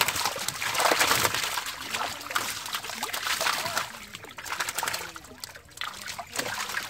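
Live fish thrashing in the water-filled hold of a wooden boat: a dense patter of splashing water that eases off about four seconds in.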